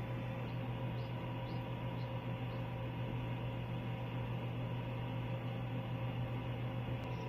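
Steady low electrical hum with faint steady tones above it, as from an egg incubator's fan and motor. A few faint short high ticks about twice a second in the first few seconds.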